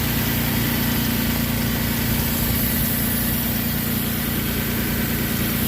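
Toyota 3.4 V6 (5VZ-FE) idling steadily, breathing through a newly fitted aftermarket cold air intake with a K&N filter.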